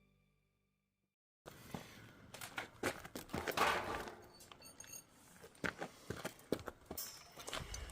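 Irregular clicks, knocks and rustling, starting suddenly about a second and a half in after a short silence.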